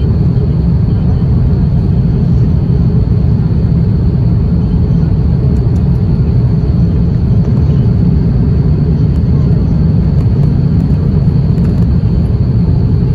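Steady low roar of airflow and Rolls-Royce Trent XWB-97 engines heard inside the cabin of an Airbus A350-1000 in cruise-level flight, with a thin steady high whine above it.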